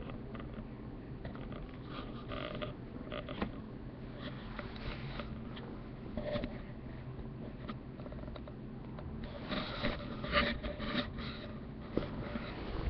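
Sleeping cat snoring: soft raspy breaths a few seconds apart, the longest near the end, over a steady low hum.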